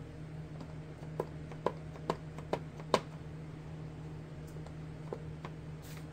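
A clear acrylic stamp block is tapped onto an ink pad five times, light sharp taps about half a second apart, the last the loudest. A couple of fainter taps follow as the stamp is pressed onto paper, over a steady low background hum.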